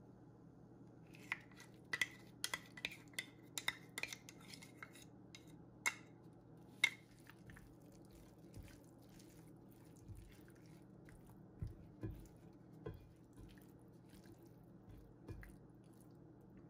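A metal spoon clinks sharply over and over as it scrapes Greek yogurt from a measuring cup into a nonstick skillet. After that, a silicone spatula stirs the penne, with soft, dull knocks and squishes. A faint steady hum runs underneath.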